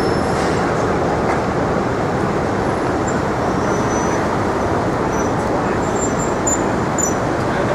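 Steady city street traffic noise, a continuous wash of passing vehicles with no single event standing out.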